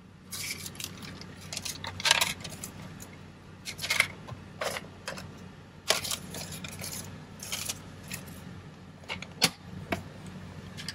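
Clear plastic pneumatic-tube carrier being handled and closed: scattered clicks, clacks and rattles from its hinged halves and the items packed inside, over a low steady hum.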